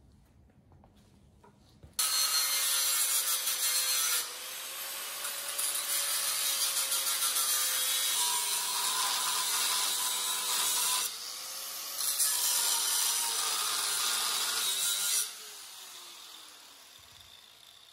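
Corded angle grinder cutting through steel tack welds: a loud grinding hiss starts about two seconds in, eases back twice as the disc comes off the metal, and after it is switched off the motor winds down with a falling whine.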